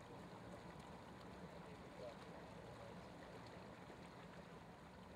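Faint, steady low hum of a Mercury outboard motor idling as a boat moves slowly through the water.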